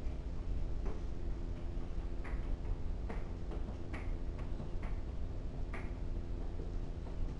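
Hooves of a small animal, apparently a goat, clicking on a hard floor as it walks, about eight irregular taps, over a steady low electrical hum.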